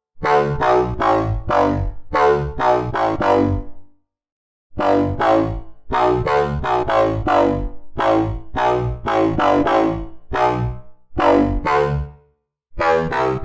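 FM synthesizer bass patch made in Sytrus, playing a quick pattern of short notes, each starting sharply and fading. The pattern pauses briefly about four seconds in and again near the end.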